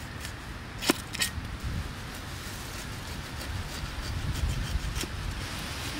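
A steel cleaver cutting a pineapple on a wooden stump: a sharp chop about a second in, a lighter stroke just after, then the blade paring down the rind with a few faint clicks. A low rumble runs underneath.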